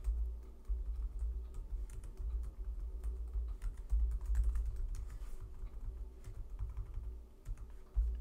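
Steady typing on a computer keyboard: a quick run of key clicks, each with a dull low thud.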